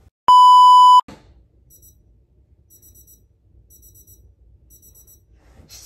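A loud, steady electronic tone lasting under a second. Then a digital alarm clock beeps faintly, in quick groups of short high beeps about once a second.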